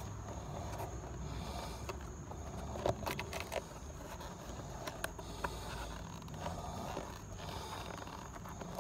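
Fingers picking and pulling at the worn-through rubber sole of a boat shoe, which is breaking apart in chunks, giving scattered small crackles and clicks over a low steady hum.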